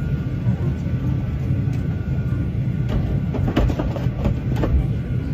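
Airliner cabin noise: a steady, loud low drone, with a few faint clicks or knocks around the middle.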